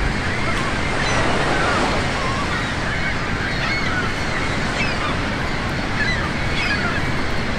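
Beach ambience: a steady wash of ocean surf, with gulls calling again and again over it.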